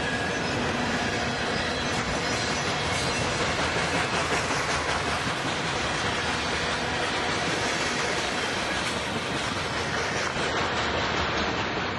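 N scale model freight cars rolling past on the track, their wheels making a steady, fine clatter over the rails.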